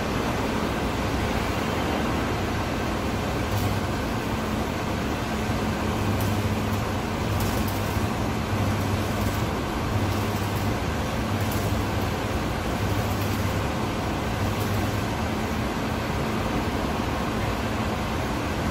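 Electric arc welding on a steel tank lid: the arc buzzes and crackles in a string of short runs, starting about four seconds in and stopping about fifteen seconds in, over a steady background rush of the workshop.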